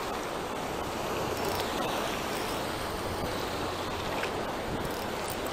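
Fast-flowing river current, a steady rush of water.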